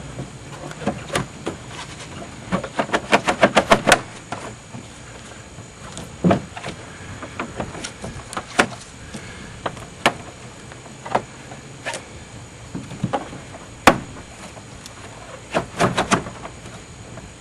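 Sharp clicks and knocks of a part being wiggled and worked loose from a car's rear door: a quick rattling run of clicks a few seconds in, then scattered single knocks and a short cluster near the end.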